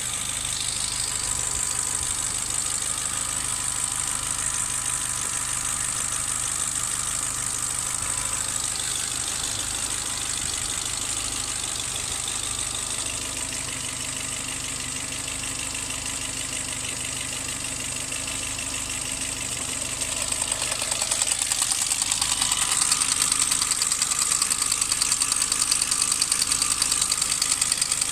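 Mercedes A150's four-cylinder petrol engine idling hot with a fast, even knocking, getting louder about twenty seconds in. The knock comes on only when the engine is warm and its cause is unknown: the owner has already replaced the hydraulic lifters and chain tensioner and found the timing chain not stretched.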